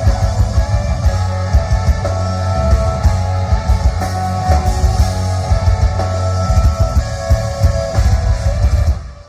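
Rock band playing live during a sound check: drums, bass and distorted electric guitars, recorded loud and boomy from the room, stopping abruptly near the end.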